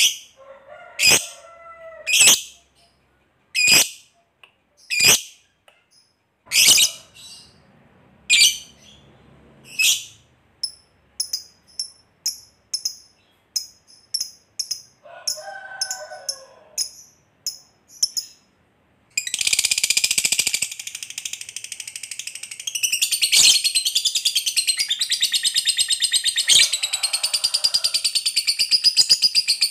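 Fischer's lovebird calling: single sharp, high chirps about a second apart, then quicker short chirps about two a second, then, about two-thirds of the way through, a long, rapid, unbroken chattering trill, the 'ngekek panjang' that keepers prize in a lovebird in full song.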